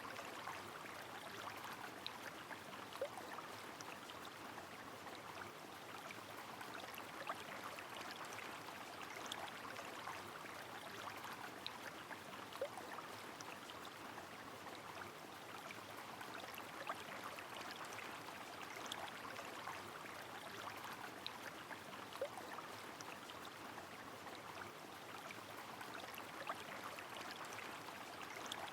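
Rain falling steadily over a flowing river, a constant watery hiss with scattered small drop ticks and an occasional louder drip.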